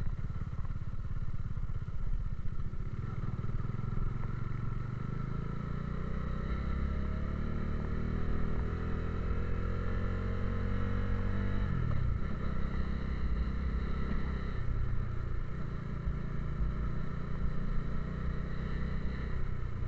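Motorcycle engine running under way, heard from the rider's own bike. About a third of the way in, its pitch climbs steadily for several seconds, then drops abruptly about halfway through and runs steady again.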